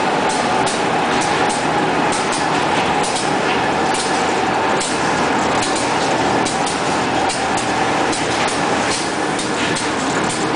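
Two-colour printing machine for corrugated cardboard sheets running steadily: a constant mechanical din with a steady whine and frequent sharp ticks as it works.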